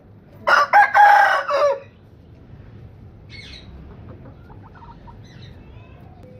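An Aseel rooster crows once, a single crow of about a second and a half, followed by a few faint high chirps.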